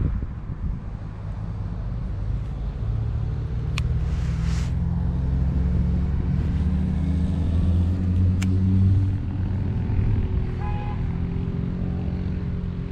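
An engine running steadily, swelling to its loudest between about three and nine seconds in and then easing off, with two sharp clicks along the way.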